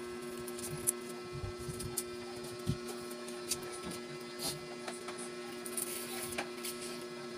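Tailor's shears snipping through cloth in short, soft cuts, with rustling fabric, over a steady electrical hum.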